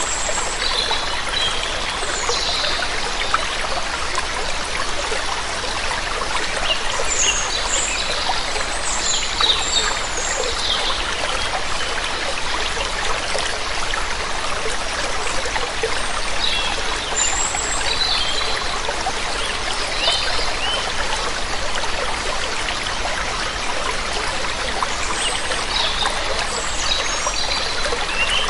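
Steady rush of flowing water from a waterfall or stream, with small birds chirping briefly in several scattered spells over it.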